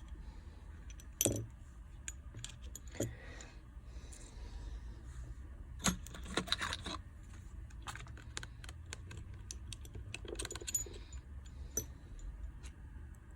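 Scattered small clicks and light metallic taps of hand tools and tiny metal parts being handled while an iPhone XR is taken apart, over a steady low hum. Sharper clicks come about a second in and near three seconds, and a busier cluster comes around six seconds.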